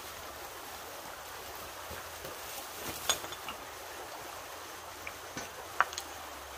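Steady rush of a shallow creek flowing, with a few light clicks and knocks as the hammock and its straps are handled, the sharpest about three seconds and six seconds in.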